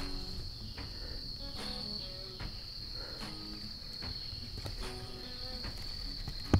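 Crickets chirping in a steady, high-pitched drone, with soft background music notes underneath. A single sharp knock sounds near the end.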